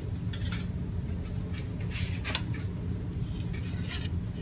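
Steel socket-set pieces, a socket extension among them, being handled: a few short, light metallic clinks and taps, over a steady low hum.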